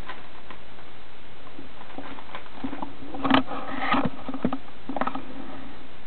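Guinea pigs moving about in wood-shaving and paper bedding: light rustling and scratchy patter in short bursts, with a sharp click about three seconds in.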